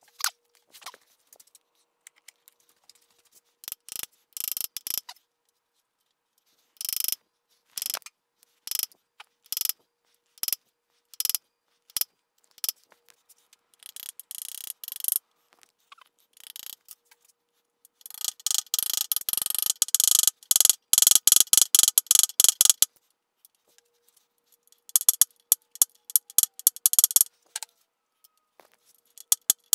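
Ratchet clicking in short bursts of rapid ticks, with a longer, denser run of clicking a little past the middle.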